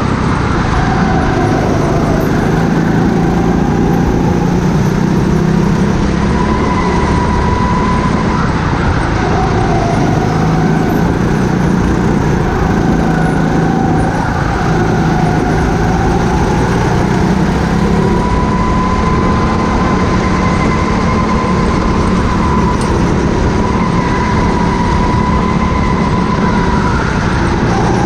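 Indoor go-kart engine running hard at racing speed, heard from the kart's own seat, its pitch rising and falling as the driver lifts and accelerates through the corners.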